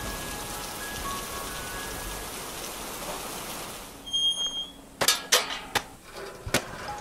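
Steady rain falling, with a few faint held music notes over it. About four seconds in the rain stops, and sharp percussive music hits begin.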